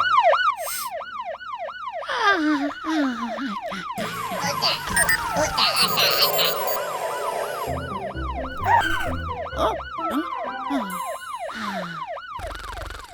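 Cartoon emergency-vehicle siren wailing in quick, repeated rising and falling sweeps, with a few falling slide notes and cartoon music.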